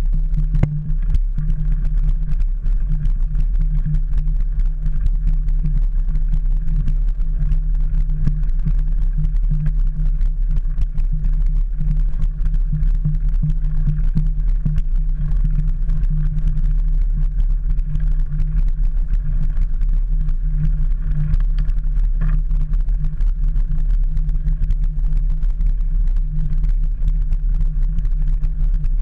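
Mountain bike rolling over a gravel track, heard through a handlebar-mounted camera: a steady low rumble of tyre, wind and frame vibration, with many small knocks from the stones.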